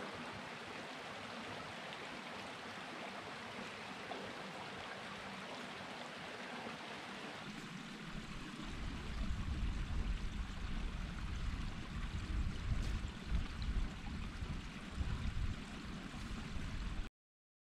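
Mountain stream rushing steadily over rocks. About eight seconds in the sound changes: gusty wind buffeting the microphone takes over in uneven low rumbles, with the stream fainter beneath, until it cuts off suddenly near the end.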